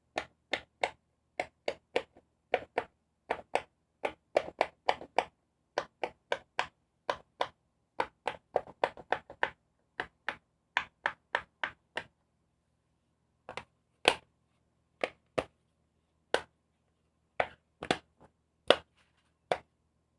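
Fidget toys being popped: short, sharp pops in quick runs of about two to three a second, then after a brief pause fewer, louder single pops about a second apart.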